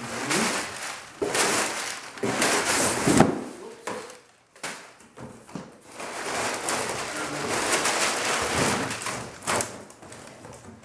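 Crumpled brown kraft packing paper and plastic wrapping rustling and crinkling as they are pulled out of a cardboard box, in repeated bursts with a short lull just before the middle.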